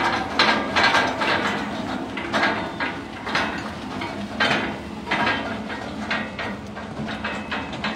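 Metal transport cage clanking and rattling in irregular knocks, one or two a second, over a steady low hum.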